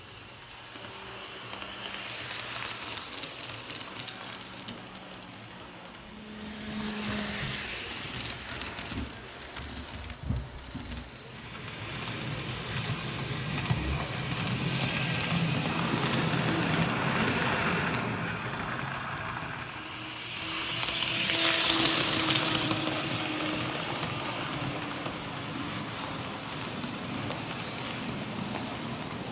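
Model train running on the layout track: the rolling noise of wheels on rail and the locomotive's motor, growing louder and fading several times as the train passes close and moves away.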